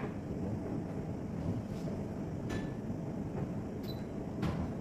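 Steady low rumble of kitchen room noise, with a few faint clinks and light knocks of utensils or dishes being handled, one with a brief ring near the end.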